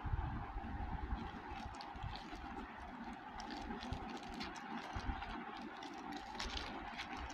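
Plastic courier mailer bag crinkling and rustling as it is handled and turned over, with a few dull handling knocks, over a steady background hum.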